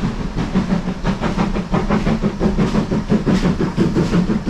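A steam locomotive passing out of sight, with rapid, evenly spaced beats of train noise.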